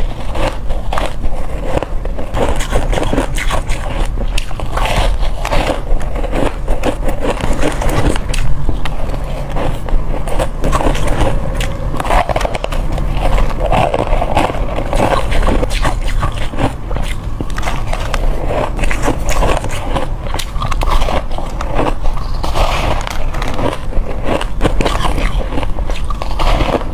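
A person biting and crunching hard crushed ice: a dense, unbroken run of crackling crunches.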